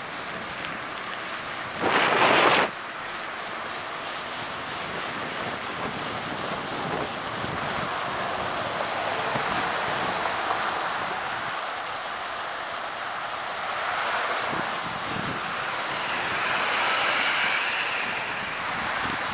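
Wind rushing over the microphone of a moving bicycle, mixed with road noise, swelling and easing as the ride goes on. A short, much louder rush of noise comes about two seconds in.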